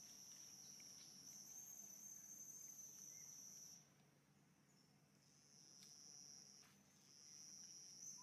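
Faint, steady high-pitched insect chorus, a continuous shrill buzz that stops about four seconds in and starts again a second and a half later.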